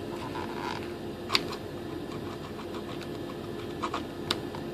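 A hand-held hobby blade cutting and scraping into the plywood battery tray inside a fibreglass glider fuselage: faint scraping, then a few sharp clicks, three of them standing out. A steady hum with a low fixed tone runs underneath.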